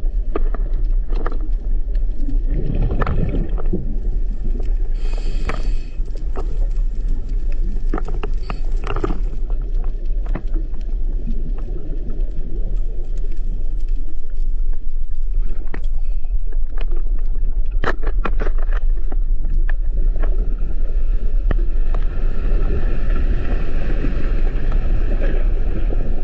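Deep, continuous underwater rumble of a seabed earthquake as picked up by a diver's camera, with scattered knocks and short bursts of hiss, growing louder about halfway through.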